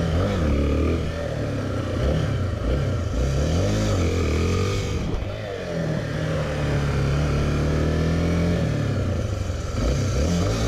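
Honda Tornado 250's single-cylinder four-stroke engine revved up and let off several times in quick succession, then held at higher revs for a couple of seconds before dropping and rising again near the end: throttle work while practising wheelies.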